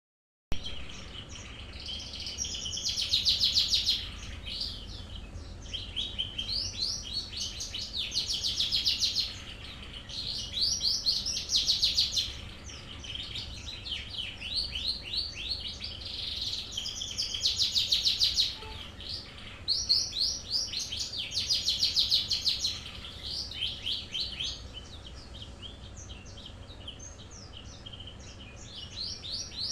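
Kept songbird singing in fast runs of high, rapid notes, coming in loud bursts of a few seconds with short quieter gaps between. It is a bird in training whose song is starting to come in.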